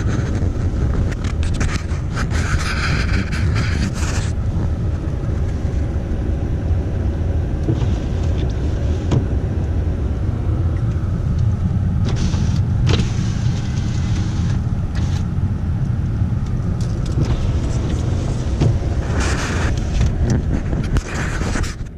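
Steady low rumble inside a pickup truck's cab with the engine running, with a few short bursts of hiss over it.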